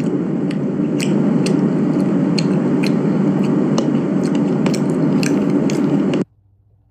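Loud close-up chewing and munching right into a phone microphone: a dense wet noise with irregular crunchy clicks. It cuts off abruptly about a second before the end.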